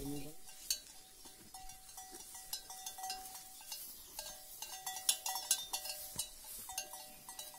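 A cattle bell on a bullock's neck clinking lightly and unevenly as the animal feeds on grass, each stroke a clear ringing note that dies away, with small ticks between.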